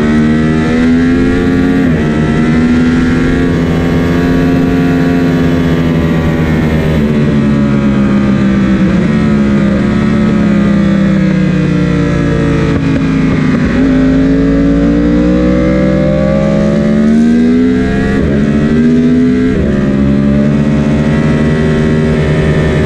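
Sport motorcycle engine at track speed, heard from on the bike: the revs climb under hard acceleration, drop away over several seconds as the rider brakes and downshifts into a corner, then climb again with a quick dip at an upshift.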